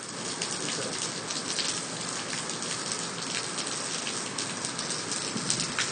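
Rain falling steadily: a constant hiss scattered with many fine drop ticks.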